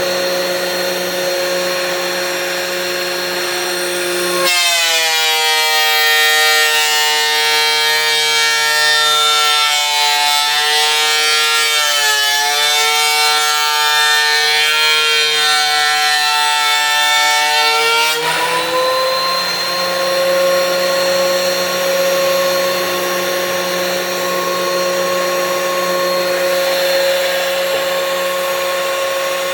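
DeWalt thickness planer running with a steady motor whine. About four and a half seconds in, a board of old hard wood feeds through the cutterhead: the whine drops in pitch under load and the cutting noise gets louder. At about eighteen seconds the board clears and the motor glides back up to its free-running pitch.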